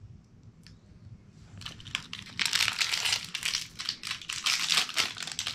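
Crinkling and tearing of small toy-packaging wrappers as they are picked open by hand. It starts about a second and a half in and grows louder.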